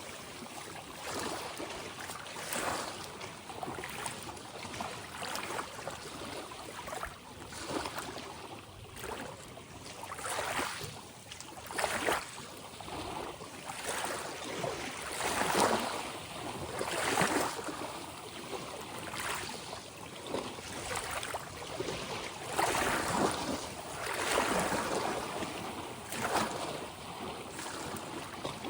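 Ocean waves breaking and washing in, one surge of rushing water after another every couple of seconds.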